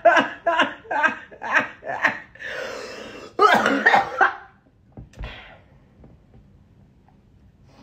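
A person's voice: a run of short vocal bursts, then a rough coughing rasp and another burst, all over by about four and a half seconds in. After that there is only low room noise.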